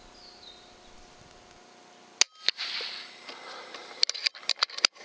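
FX Impact M3 air rifle firing: one sharp shot about two seconds in, a second crack a moment after, then a quick run of clicks and knocks near the end.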